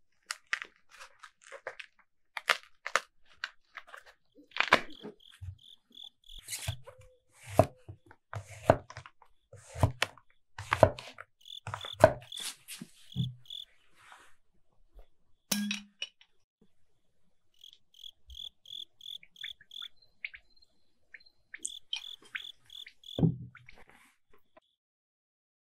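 Chef's knife slicing a shiitake mushroom on a wooden cutting board: a run of crisp cuts and knocks on the wood. Behind it a cricket chirps in short, evenly spaced trains, and a single dull thump lands near the end.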